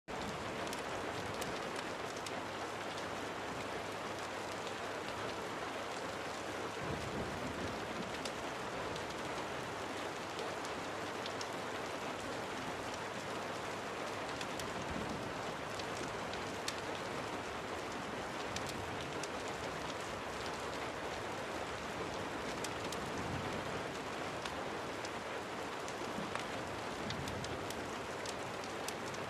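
Steady rain mixed with a crackling fire: an even hiss, with scattered sharp pops and clicks.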